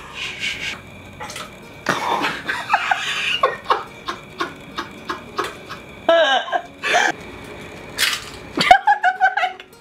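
A person laughing in several short bursts, with light clicks and knocks in between.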